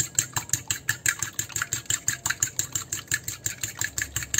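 An egg being beaten by hand in a bowl: quick, even clicks of the utensil striking the bowl, about eight strokes a second.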